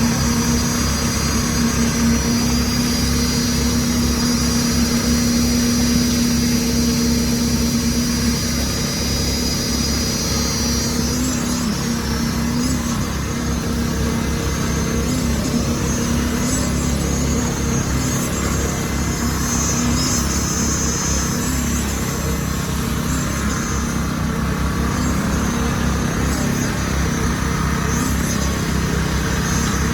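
Heavy truck engine running steadily on a concrete pour site. A high-pitched whine sits over it for about the first ten seconds, then stops.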